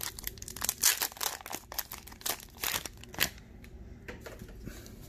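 Foil wrapper of a Pokémon Sword & Shield booster pack crinkling as it is torn open, a rapid crackle for about three seconds that then dies down.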